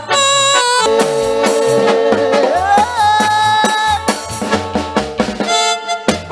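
Live duranguense band music: an instrumental passage with a lead melody of long held notes that slide up in pitch about halfway through, over drum kit and bass.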